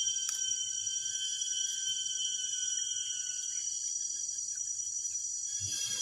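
Steady chorus of rainforest insects calling together at several high, even pitches.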